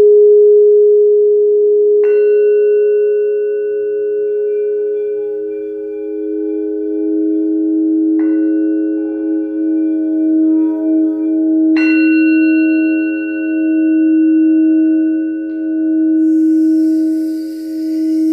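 Frosted quartz crystal singing bowls struck with a padded mallet three times, each strike adding a new ringing tone that overlaps the long, slowly pulsing hum of the bowls already sounding. A soft high hiss comes in near the end.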